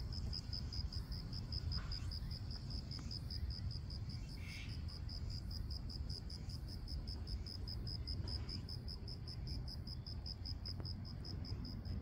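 An insect chirping in a fast, even, high-pitched pulse, about five to six chirps a second and unbroken, over a low steady rumble.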